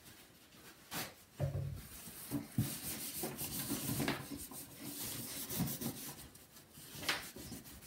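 Paper towel rubbed back and forth over the plastic rear casing of a CRT monitor, a scratchy wiping hiss with a few light knocks against the casing.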